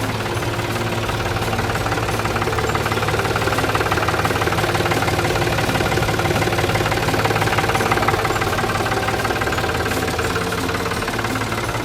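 New Holland tractor engine running steadily at idle.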